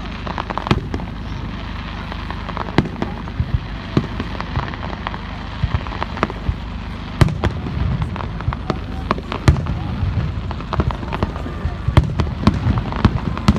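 Fireworks display: a fast, irregular series of sharp bangs and crackles from bursting aerial shells over a steady low rumble, the loudest reports coming about seven seconds in and near the end.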